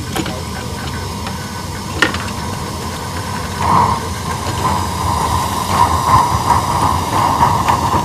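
Live-steam model locomotive hissing steadily, with a sharp click about two seconds in and a louder, pulsing hiss from about three and a half seconds in.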